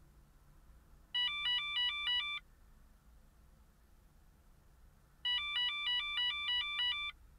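Radar detector sounding its laser alert: two bursts of rapid, shrill electronic beeping that alternates between two pitches, the first about a second long, the second nearly two seconds, signalling a hit from a police laser gun.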